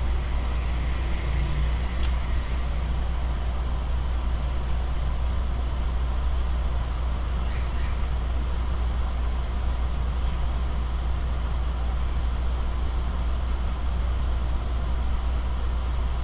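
Steady whirring machine noise with a strong low hum, and one faint tick about two seconds in.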